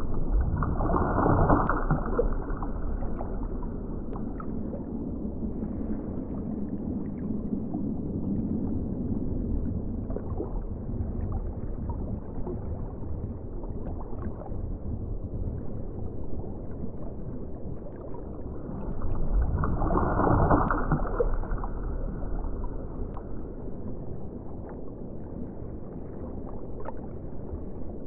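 Underwater ocean ambience: a steady, muffled low rumble and swirl of water with scattered faint clicks. It swells louder twice, briefly, about a second in and again about two-thirds of the way through.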